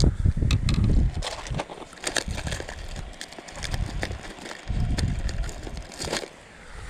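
Close handling noise: irregular bumps, rubbing and sharp clicks as a swallowed hook is worked out of a small crappie.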